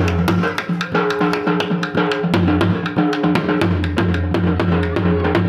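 Dhol drum beaten in a fast, driving rhythm: sharp, cracking stick strokes several times a second over deep, booming bass strokes.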